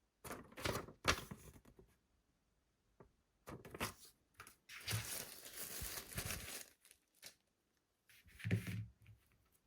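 Packaging being handled, crinkling and tearing in irregular bursts, with a longer rustle about five seconds in and a dull knock near the end.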